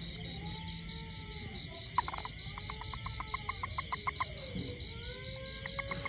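Large toad, grabbed by hand, giving trains of rapid chirping pulses, several a second, starting about two seconds in after a sudden knock. This is the call a toad makes when it is seized.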